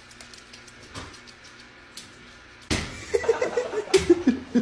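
A few faint clicks, then about two and a half seconds in a sudden loud clatter, followed by a person laughing.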